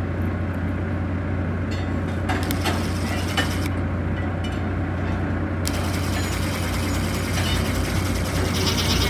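Electric drill spinning a drill-mounted wire stripper, cutting the insulation off 8-gauge stranded wire, over a steady low hum.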